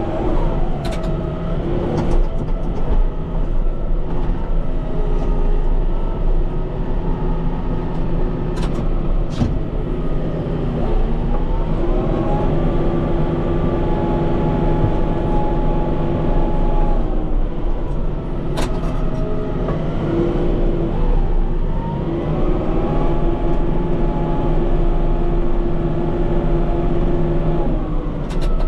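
Kubota M5-091 tractor's four-cylinder diesel engine working while pushing snow, revving up twice, holding the higher pitch for several seconds and then dropping back each time. A few sharp knocks come through along the way.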